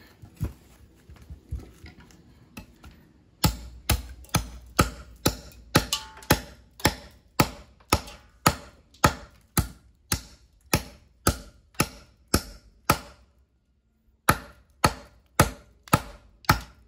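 A hand-forged chopping knife of cannon-barrel steel hacking into a hardwood ironwood log in an edge-holding test. The strikes come evenly, about two to three a second, in a long run; after a short pause there are about seven more.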